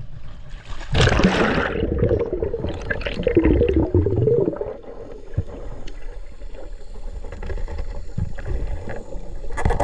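A splash about a second in as a snorkeler goes into the sea, then muffled underwater sound: bubbles gurgling and water rushing past the microphone.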